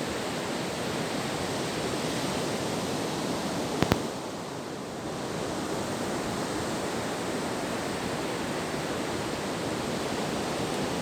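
Steady rushing of ocean surf breaking on a beach, with two sharp clicks about four seconds in, after which the noise is briefly a little quieter.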